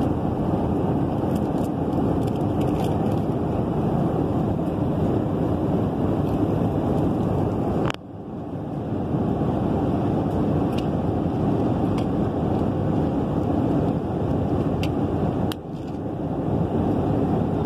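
Steady roar of airliner cabin noise, the engines and the air rushing past the fuselage heard from a passenger seat. Two sharp clicks, about halfway and near the end, each briefly dip the noise.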